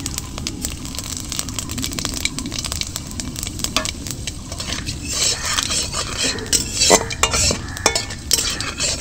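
Panch phoron, dried red chillies and bay leaves sizzling in hot mustard oil in a kadai while a spatula stirs and scrapes them against the pan, with many small clicks. The sizzle grows louder about five seconds in, and a sharp knock on the pan comes about two seconds later.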